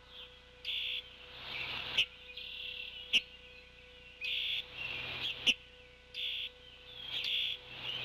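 Small birds in the surrounding woods calling over and over in short, high notes about once a second, with several sharp clicks standing out loudest. The perched bald eagle is silent.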